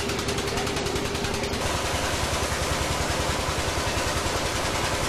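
Irrigation pump engine running with a rapid, regular beat. From about one and a half seconds in, an even rush of water pouring from the pump's outlet pipes into a concrete channel joins it, with the engine's beat still underneath.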